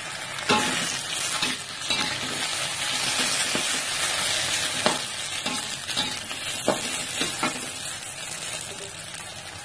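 Stir-fry of greens, egg and meatballs sizzling in a hot wok while a metal spatula stirs and scrapes it, with irregular clinks of the spatula against the pan.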